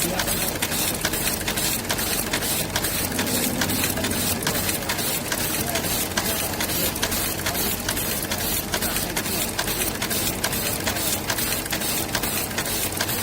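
Automatic chain-making machine running, its mechanism clicking in an even rhythm of about three strokes a second over a steady mechanical noise.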